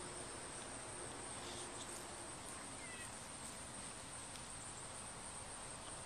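Quiet outdoor ambience: a steady, high insect buzz throughout, with a couple of brief faint chirps about three seconds in.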